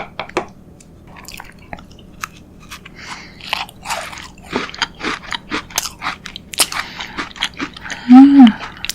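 Close-miked biting and chewing of a crunchy chocolate cookie, a run of sharp crunches and chewing. Near the end comes a short, loud hummed voice sound that rises and falls in pitch.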